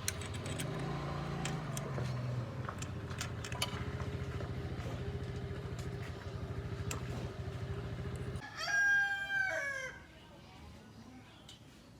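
Small two-stroke grass-cutter engine on a mini motorbike running steadily, then cutting off abruptly about eight seconds in. A rooster crows once right after the engine stops.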